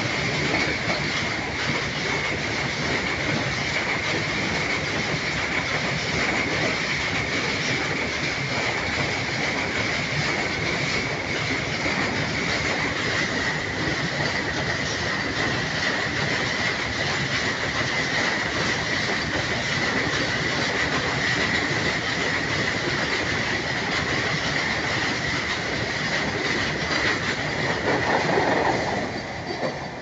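Freight train wagons rolling past on the rails, with a steady high-pitched wheel squeal over the running noise. Near the end the noise swells as the last vehicle, the brake van, goes by, then starts to fade.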